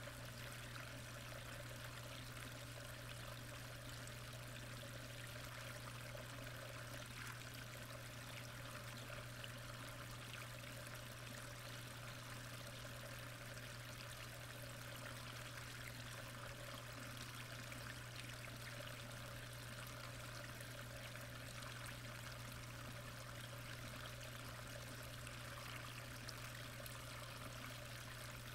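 Faint, steady rush of moving water heard from underwater in a koi pond, with a constant low hum beneath it.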